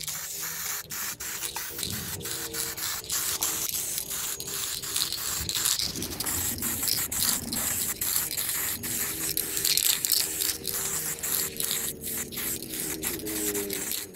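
Samurai 2K aerosol spray can spraying silver paint onto a car wheel rim: a steady hiss broken by many brief stops and starts, over a faint steady hum.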